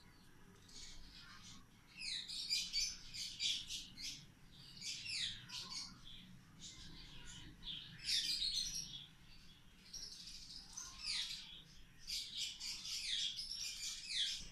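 Small birds chirping in repeated bouts of quick, high, falling chirps every second or two.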